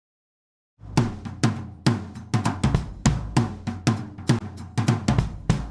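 Silence, then a little under a second in, background music starts: a drum-kit beat of snare, bass drum and cymbals, with a few hits a second over a low bass line.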